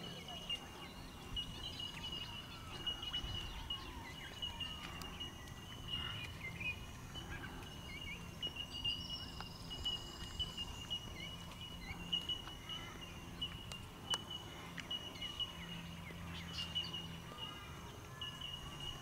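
Pond-side ambience: a steady high-pitched insect trill pulsing rapidly throughout, with scattered bird chirps and calls over a faint low background noise.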